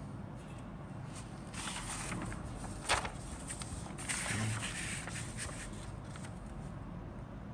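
Paper instruction booklet being handled and its pages turned: rustling and crinkling for a few seconds, with a sharp snap of paper about three seconds in.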